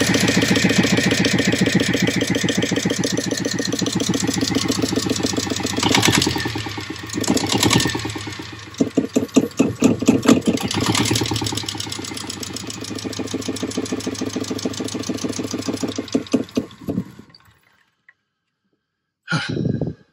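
Small marine diesel engine running with a steady rapid beat, its level swelling and pulsing harder a few times in the middle, then shut down and dying away about 17 seconds in. It is running on fuel reaching it properly, after a blocked fuel pipe had starved it.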